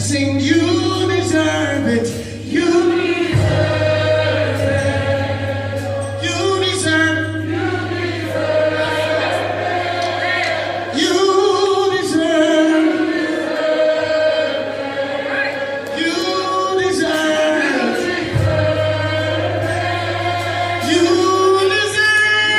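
Gospel worship singing by a choir over a steady low bass note that holds through most of the passage.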